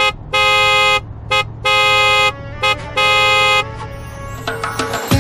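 Car horn honking in a short-then-long pattern three times, each toot a steady pitched blare. Music comes in near the end.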